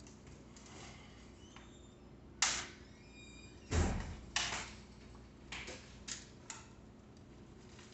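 Hand tools and bike parts knocking and clattering as they are handled. A sharp knock with a brief metallic ring comes a couple of seconds in, a heavier thump follows about a second later, and then a few lighter clicks.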